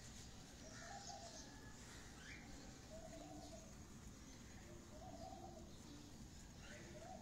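Domestic high-flyer pigeons cooing faintly, a short coo about every two seconds.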